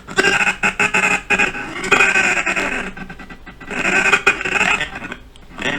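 A man's recorded line of dialogue, "And I am that man!", played back slowly in choppy, stuttering fragments as the audio is scrubbed frame by frame along an animation timeline.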